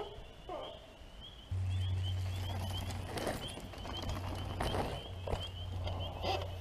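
Outdoor trail ambience: a few sharp knocks and rustles, a faint repeated high chirping, and a steady low hum that starts suddenly about a second and a half in.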